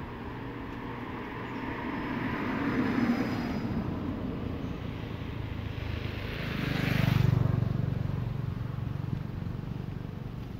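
Motor vehicles passing by: one swells and fades about three seconds in, and a louder one with a low engine hum passes about seven seconds in.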